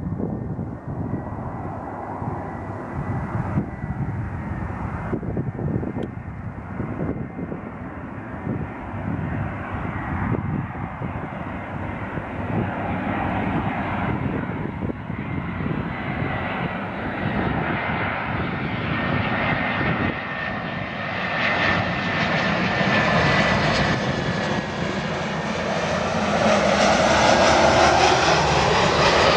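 Airbus A319-112 airliner's CFM56 turbofan engines on final approach, a jet rush with a thin steady whine that grows steadily louder as the plane comes in to land. It is loudest near the end, as the aircraft draws close.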